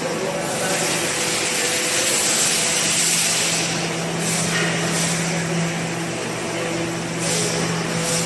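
Steady machinery noise: a low, even hum under a loud airy hiss that swells and eases every second or two.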